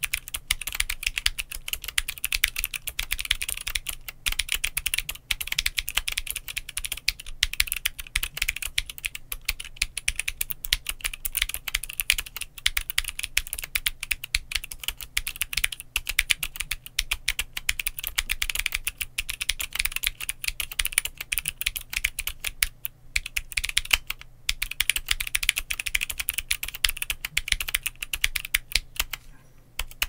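Continuous fast typing on a GMMK Pro keyboard with Glorious Raptor clicky switches and Glorious Polychroma keycaps: a dense stream of sharp, bright key clicks, broken by a few brief pauses in the second half.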